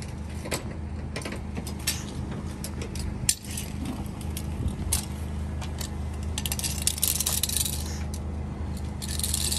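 Irregular sharp metallic ticks and clinks over a steady low hum, with two short spells of hissing in the second half, around a turbocharged Infiniti G35 just off hard dyno pulls.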